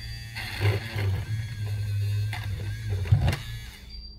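Small handheld electric glue-removal pen running, its tip grinding old adhesive off a glass phone back cover with a steady motor hum; the motor stops near the end.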